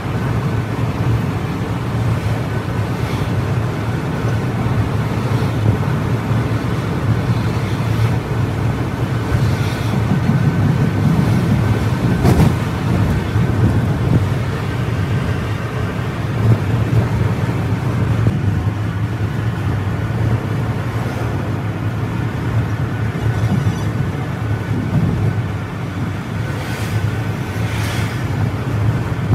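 Steady engine drone and road noise inside a Scania multi-axle coach's cab while it cruises on the highway, with a few brief sharp knocks about midway and twice near the end.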